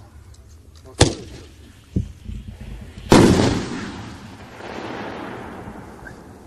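Single 1.5-inch aerial firework shell fired from a mortar tube: a sharp launch bang about a second in, a smaller thud a second later, then the loudest bang, the shell bursting overhead, about three seconds in, trailing off over the next few seconds.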